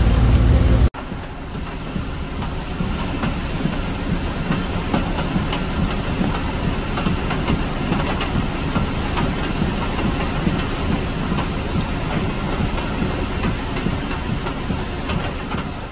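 Floodwater rushing through a street in heavy rain: a steady, even wash of water noise with a scatter of small ticks. For about the first second a vehicle's engine and road noise is heard from inside the cab, then it cuts off abruptly.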